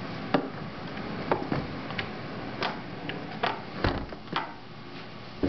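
Steady hiss of rain falling in a thunderstorm, with about a dozen irregular sharp ticks and two duller knocks, one about four seconds in and one at the end.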